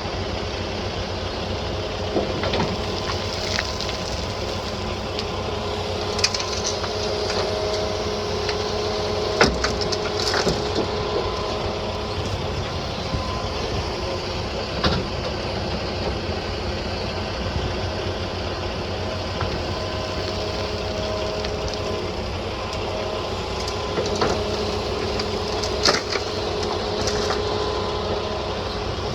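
John Deere 210G LC excavator running steadily as it loads bank gravel, with a whine that comes and goes as the hydraulics work and occasional sharp knocks and clanks.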